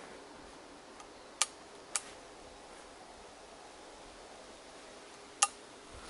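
Three sharp clicks over a faint steady hiss: two about half a second apart, a second and a half in, then one louder click near the end.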